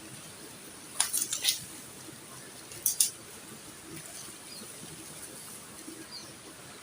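A few sharp clicks and clinks of small hard objects: a quick cluster about a second in, then two close together near three seconds in, over a steady background hiss.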